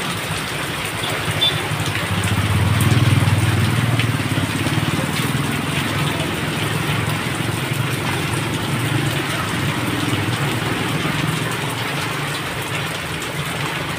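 Heavy downpour: a steady hiss of rain, with water streaming off the edge of a roof. A low rumble swells under it about three seconds in.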